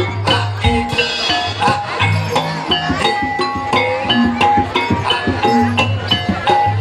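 Lively dance music with regular percussion strokes, a sustained bass line and a repeating melody.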